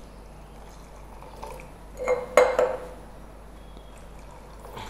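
Watermelon juice poured from a plastic jug into a glass over ice, with a short glassy clink and ringing about two seconds in.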